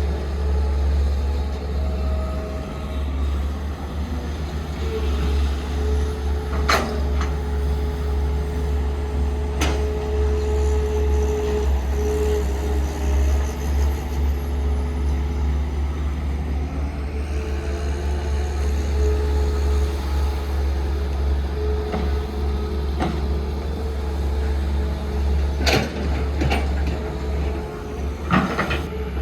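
Heavy diesel machinery running steadily with a deep rumble and a held whine, with several sharp metallic knocks, a cluster of them near the end.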